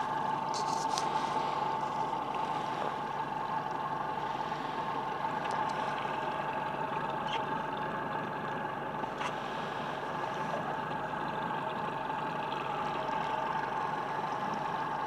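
A boat's Yamaha outboard motor runs steadily, with an even, unchanging hum and whine. A few faint clicks sound over it.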